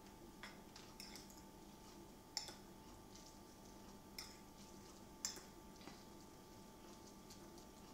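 A metal fork lightly clinking and tapping against a ceramic bowl while stirring and lifting instant noodles: half a dozen faint ticks, two of them a little louder, over a quiet steady hum.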